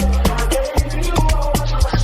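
Afrobeats dance music playing without vocals: a steady drum beat over a sustained bass line and short synth notes.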